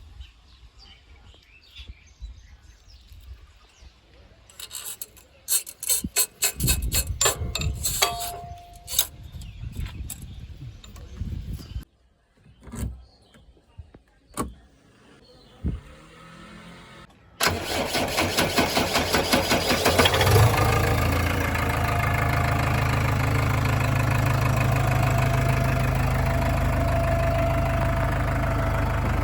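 Scattered clicks and knocks, then, well past halfway, a JCB 3DX backhoe loader's diesel engine cranks with fast, even strokes for about three seconds, catches and settles into steady running.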